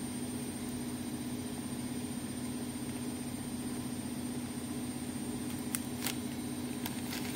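A steady low electrical hum, with a few light clicks near the end.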